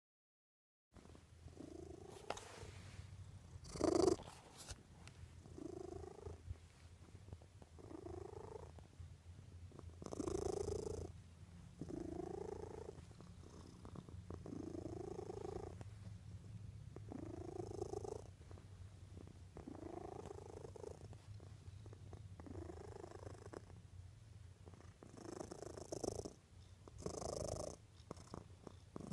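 Domestic cat purring steadily, with a soft rising sound on each breath about every two seconds. A single sharp knock about four seconds in.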